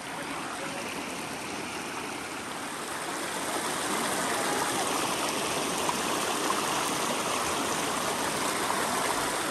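A steady rush of running water, growing a little louder a few seconds in.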